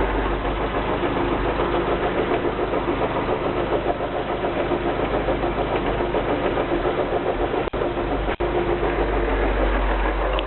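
Citroën DS engine running in gear with the front wheels spinning free, and a steady grinding noise from the gearbox that the owner suspects comes from the gearbox itself rather than the drive shafts. The sound cuts out very briefly twice, about three quarters of the way through.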